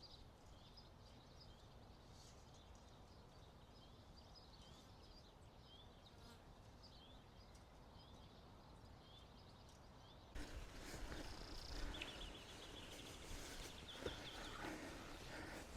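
Faint outdoor ambience with short, high, rising chirps repeating about once a second. About ten seconds in it gives way to louder rustling and handling noise with small clicks and a fast high trill.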